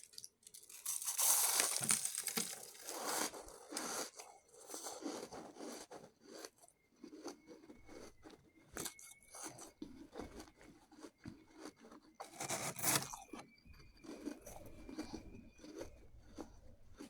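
Shaved ice being chewed and crunched in the mouth, close to the microphone: a loud stretch of crunching in the first few seconds, softer scattered crackles after, and another short loud crunch about three quarters of the way through.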